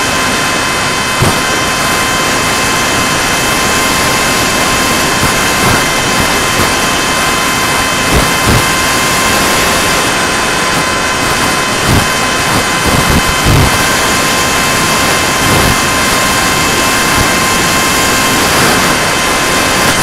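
Electric motor of a foam RC jet plane running at steady throttle, heard from a camera mounted on the plane: a steady whine over rushing airflow, with a few short low thumps of wind buffeting the microphone.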